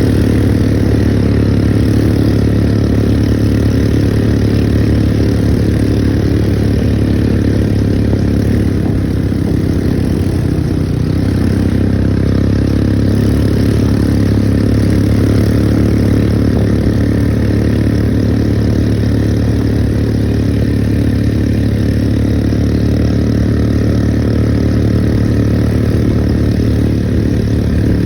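ATV engine running steadily at an even pitch while the machine climbs a bumpy, potholed road.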